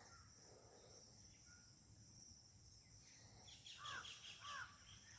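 Near silence: a faint outdoor background with a steady high insect hum, and a faint voice briefly about four seconds in.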